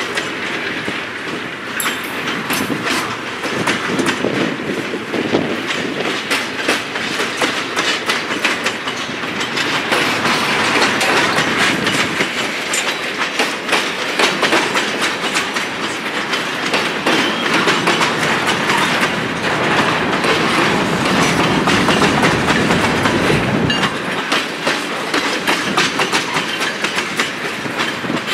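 Freight cars rolling past close by: container flatcars, a covered hopper and tank cars. Their steel wheels make a steady rumble, with repeated sharp clicks as the trucks pass over the rail joints.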